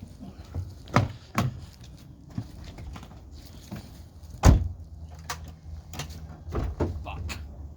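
Clicks and knocks from a start attempt on a 2010 Hyundai Elantra that still won't start despite a new battery, plugs and wires. A heavy thump comes about four and a half seconds in, followed by a low steady hum with a few scattered knocks, and the engine never catches.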